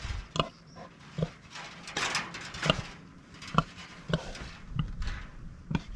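A pig grunting in short, scattered grunts, with a rustling scuff about two seconds in.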